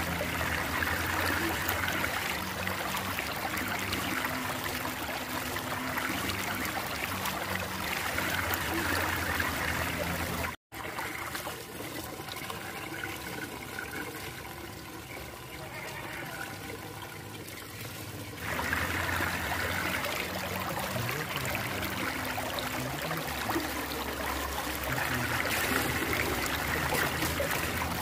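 Water rushing and swirling steadily down a whirlpool vortex, with a low steady hum beneath it. The sound cuts out for an instant about ten seconds in and is softer for several seconds before the rush returns.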